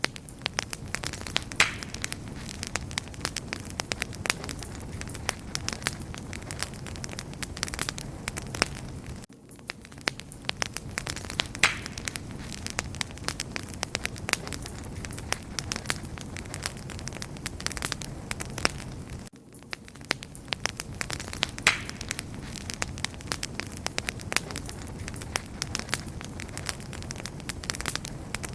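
Wood fire crackling steadily: a dense run of sharp pops and snaps over a low steady hiss. The sound dips briefly about every ten seconds and then resumes the same pattern.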